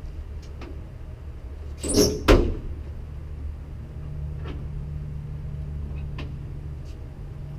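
The hood of a 1989 Ford Mustang GT being unlatched and raised: a short scrape followed by a sharp clack about two seconds in, over a steady low hum.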